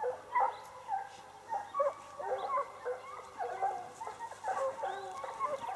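Several hounds baying at once, their short, pitch-bending calls overlapping without a break.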